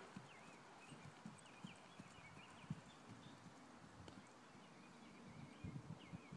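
Soft, faint hoofbeats of a horse trotting on grass, with a few louder low thumps near the end.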